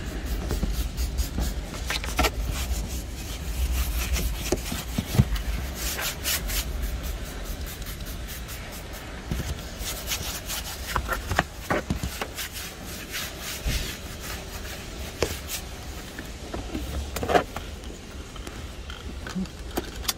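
A brush scrubbing and rubbing the car's interior surfaces, with irregular scraping strokes and scattered small knocks.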